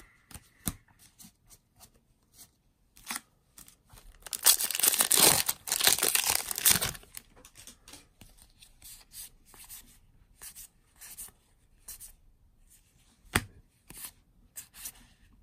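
A Magic: The Gathering booster pack wrapper is torn open with a long crinkling rip about four seconds in, the loudest sound here. Before and after it come short light snaps and slides of trading cards being flicked through one by one.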